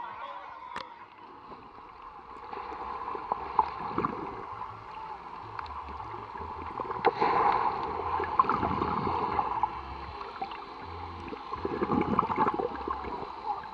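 Water sloshing and gurgling around a submerged action camera, muffled as heard underwater, with scattered sharp clicks and knocks and a few louder surges of churning water as swimmers move nearby.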